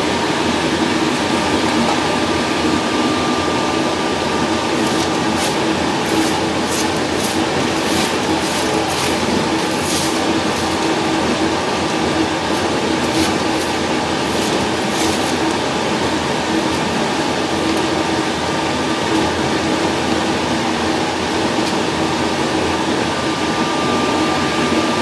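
Steady, loud machine noise of crematory equipment running, with a constant hum. Between about five and fifteen seconds in, a run of light clicks and scrapes as cremated bone fragments are swept across a metal tray.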